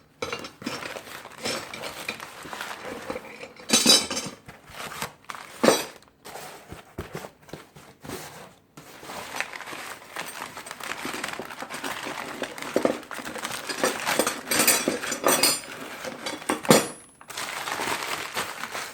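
Old steel wrenches clinking and clanking against one another as they are handled and set down, with a few sharper knocks among them. Their wrapping crinkles and rustles as it is pulled off.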